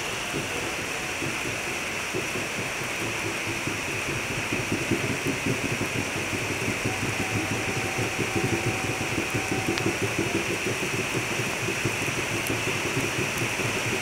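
Rain falling on maize leaves and trees, a steady patter that grows louder about four and a half seconds in, over a steady high hiss.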